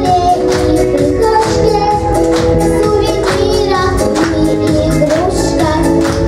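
Upbeat song backing music with a steady beat.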